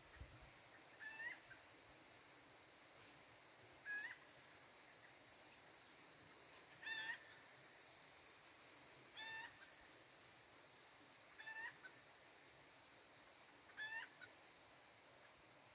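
A bird calling faintly, one short call repeated six times about every two and a half seconds, over a steady faint high-pitched whine.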